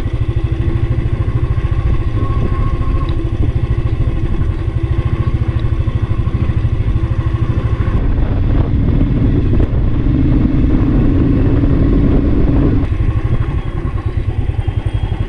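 Motorcycle engine running steadily as the bike is ridden, a fast low beat; its note changes a little between about ten and thirteen seconds in.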